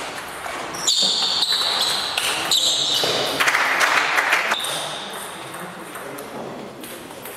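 Table tennis rally: the celluloid ball clicking off bats and table in the first second, then shoes squeaking sharply on the hall floor as the players move, loud for a few seconds as the point ends, then fading.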